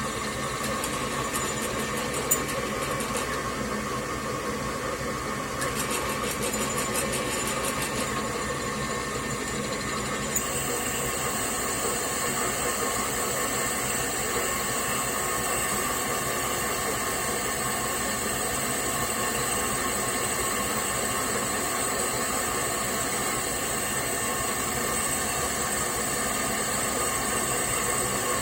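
Homemade metal lathe running steadily while drilling a workpiece: a constant mechanical hum and whine made of several steady tones. A few light clicks come in the first several seconds, and a high whistle joins about ten seconds in and holds.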